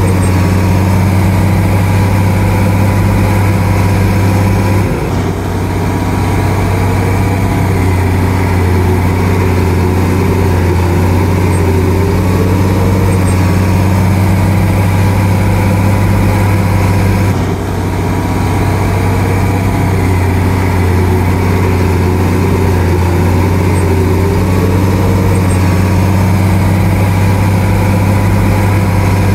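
Crawler bulldozer's diesel engine running steadily under load as it pushes soil, with a brief dip in engine note about five seconds in and again about seventeen seconds in.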